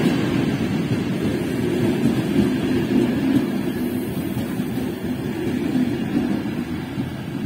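České dráhy passenger coaches rolling past close by: a steady rumble of wheels on the rails that slowly gets quieter.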